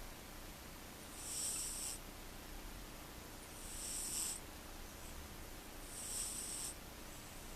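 Six-month-old Sphynx cat snoring: three faint, airy, high-pitched snores, one about every two and a half seconds.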